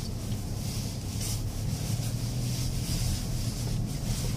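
Cabin noise of a Mercedes GLA 220d's four-cylinder diesel pulling slowly along a rough dirt track: a steady low engine hum under tyre and road noise, with a few light knocks from the suspension and cabin.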